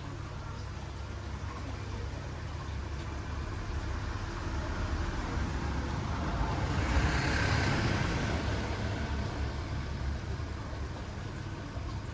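A road vehicle passing by: its tyre and engine noise swells slowly to a peak about seven seconds in, then fades away, over a steady low hum.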